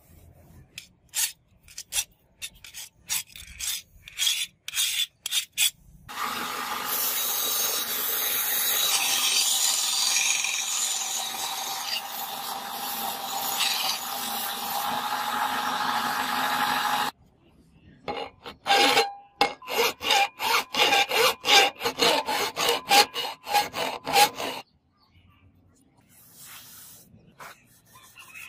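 Quick scraping strokes of abrasive on a steel blade. Then a belt grinder runs steadily for about eleven seconds with the blade pressed against the moving belt. Then comes a fast run of rubbing strokes, about three a second, which stops suddenly, leaving faint handling sounds.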